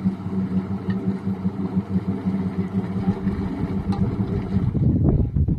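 Motorboat engine running steadily with an even, pulsing hum; it cuts out near the end, leaving a rough low rumble.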